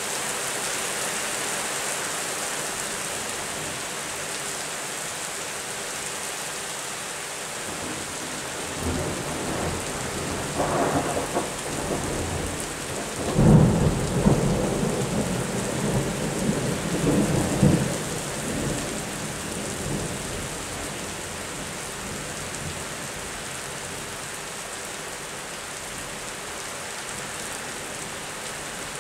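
Steady rain falling, with a long rolling rumble of thunder that builds from about eight seconds in. The thunder swells in several waves, loudest about halfway through, and dies away by about two-thirds of the way in.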